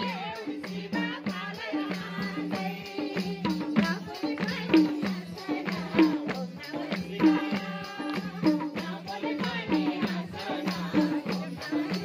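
Nepali folk bhajan played live: harmonium chords over a steady beat of madal hand drums and a jingling tambourine.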